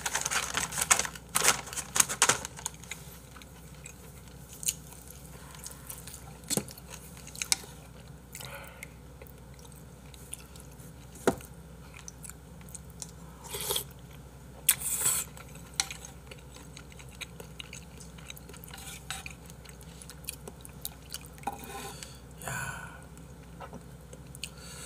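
Close-up eating sounds: chewing on a mouthful of hangover soup with glass noodles, with scattered sharp clinks of chopsticks and a spoon against bowls, busiest in the first couple of seconds and again about fourteen seconds in.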